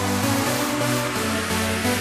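Electronic dance music with a steady beat and sustained synth chords.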